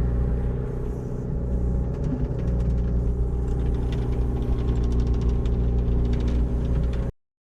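An engine running steadily with a low rumble, with a fast rattle of clicks through the middle; it cuts off suddenly near the end.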